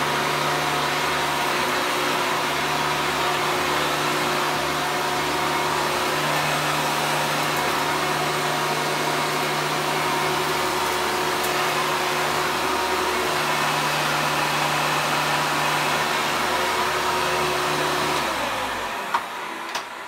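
1993 Hoover Legacy Supreme upright vacuum cleaner running steadily, a loud motor whir with a low hum. Near the end it is switched off and spins down, followed by a click.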